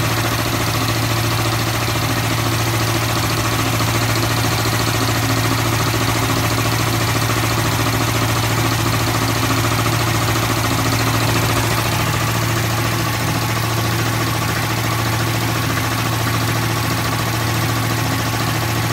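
Two-stage, belt-driven industrial air compressor running under power, its 4 hp single-phase electric motor driving the pump head with a steady, even low hum.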